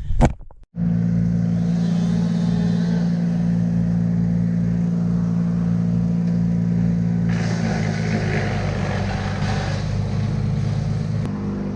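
An engine running steadily at one speed, starting abruptly just under a second in. From about seven seconds in a rushing noise joins it for a few seconds.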